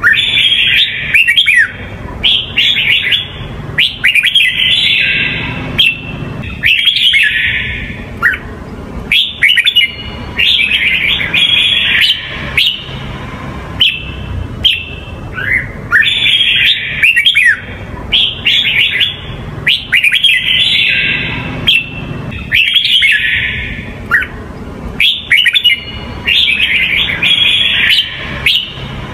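Red-whiskered bulbul of the Huế type singing: short, loud, warbled phrases repeated every couple of seconds, with a low steady rumble underneath.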